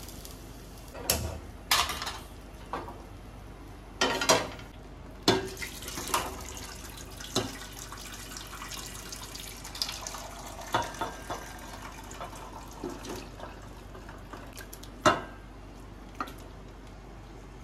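Pots, pans and metal utensils knocking and clinking at irregular intervals during kitchen work, over a steady faint background noise.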